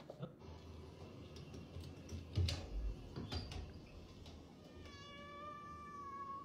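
A few footstep thuds, then a house cat meows once near the end: one long call held at a steady pitch for over a second.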